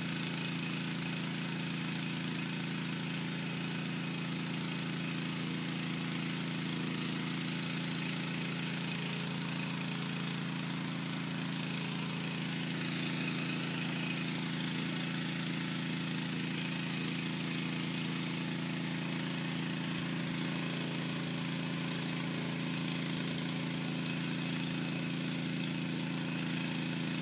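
Engine of a sewer jetter running steadily at constant speed, an unchanging hum while the jet works the clogged line.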